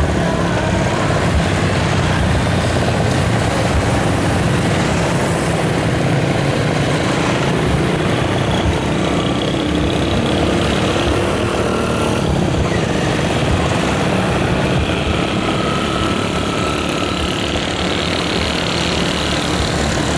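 Street traffic of small motorcycle engines: motorbikes, scooters and a motorcycle rickshaw running past in a steady mix. Higher engine noise builds near the end as the rickshaw draws close.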